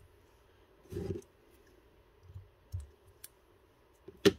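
Small handling knocks and clicks as thread is started on a hook held in a fly-tying vise, with a soft knock about a second in and one sharp click near the end.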